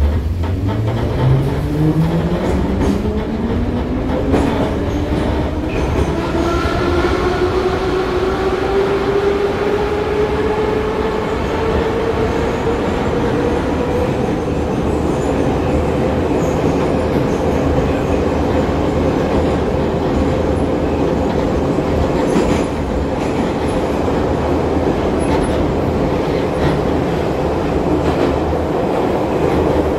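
Moscow metro train pulling away and running through the tunnel, heard from inside the car. The traction motors' whine rises steadily in pitch for about the first fifteen seconds, then holds level at running speed over the rumble and clatter of the wheels on the rails.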